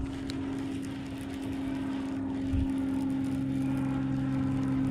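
Bass boat's electric trolling motor running with a steady low hum, with a soft low bump about halfway through.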